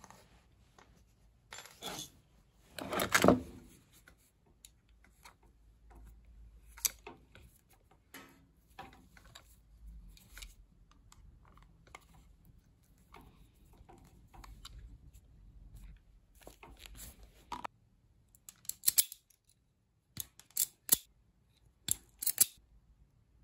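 Hand tools worked on electrical cable at a workbench: a knife cutting the rubber sheath of a multicore cable, with handling rustles and light clicks. Self-adjusting wire strippers clamp and snap shut on the inner wires, several sharp clicks near the end, and there is one loud knock about three seconds in.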